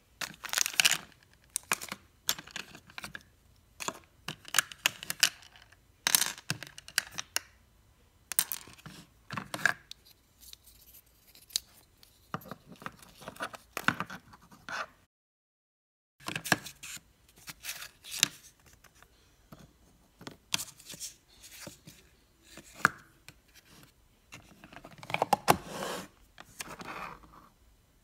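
Small plastic craft-kit case and its cardboard and foil packaging being handled: irregular clicks and taps of plastic parts and crinkling, tearing rustles of paper, with a break of about a second around the middle.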